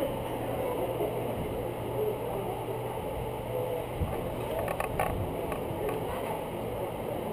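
Muffled, steady rumble and rubbing of a moving camera in a gym hall, with a short cluster of light knocks about five seconds in.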